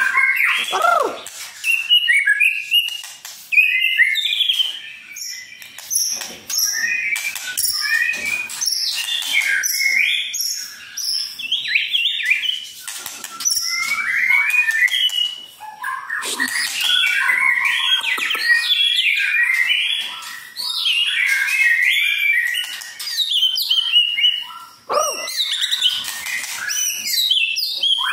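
White-rumped shama singing a long, varied song of rapid whistled and chattering phrases, broken only by brief pauses.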